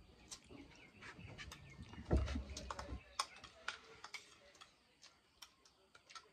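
Metal spoons clicking and scraping against bowls as two people eat noodles, a scatter of light irregular clicks. About two seconds in there is a louder, low muffled rush lasting about a second.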